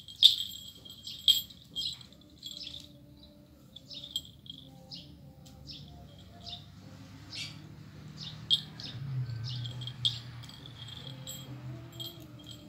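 Small birds chirping, short high chirps repeated irregularly, the loudest in the first two seconds, over a faint low hum.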